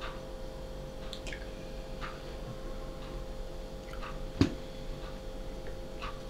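Hands handling slices of green mango in a porcelain bowl and a ceramic sauce cup: light scattered clicks and taps of fingers and fruit against the china, with one sharper knock about four seconds in. A steady faint hum runs underneath.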